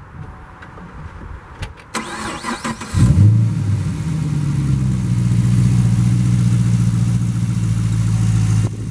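Chevrolet Camaro SS's 6.2-litre V8 starting about three seconds in, flaring up briefly, then settling into a steady idle, freshly fitted with a cold air intake.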